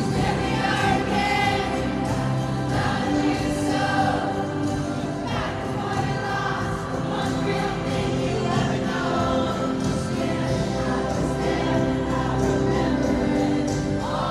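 Background music: a song with layered singing over steady instrumental backing.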